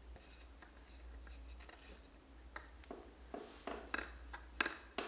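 Light clicks and knocks of parts being handled while working inside a Fender Rhodes electric piano, with a few sharper knocks near the end, over a faint low hum.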